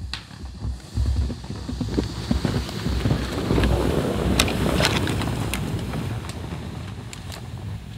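Wind buffeting the microphone, a low rumble that swells through the middle and eases off toward the end, with scattered sharp clicks over it.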